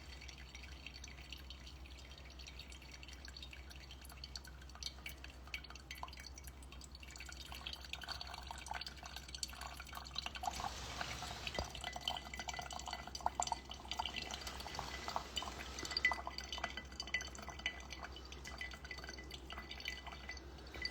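Coffee dripping through a home coffee brewer. The drips are faint at first and come thicker and louder from about eight seconds in.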